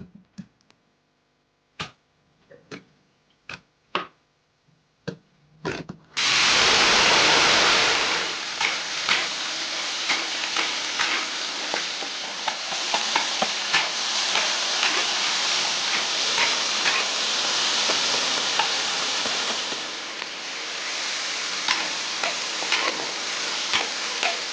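A few sharp clicks and taps, then about six seconds in a sudden start of loud, crackling sizzling as ingredients hit hot oil in a pan, going on steadily with scattered pops.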